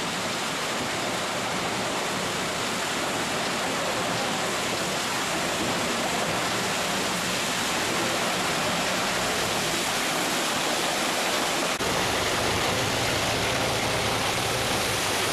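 Concrete mixer truck pouring concrete down its chute onto a rebar slab: a steady, even rushing noise. A deeper rumble joins about twelve seconds in.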